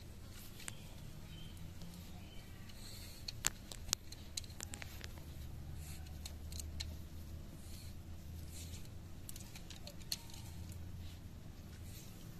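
Shiba Inu puppy rummaging in grass: scattered sharp clicks and rustles, the loudest two close together a little past three seconds in, over a low steady rumble.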